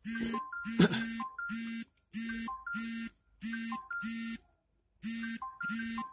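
A run of short electronic beeps, about two a second, stepping between a few pitches like a simple ringtone or alarm tune, with a brief pause a little after the middle.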